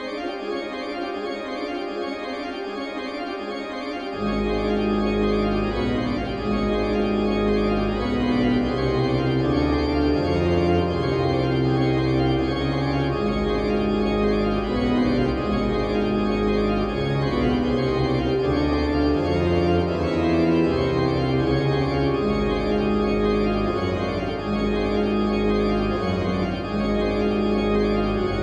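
Pipe organ playing the opening of a toccata. Sustained chords in the middle and upper range come first; about four seconds in, the low pedal bass enters and the sound grows louder, with held chords changing every second or two.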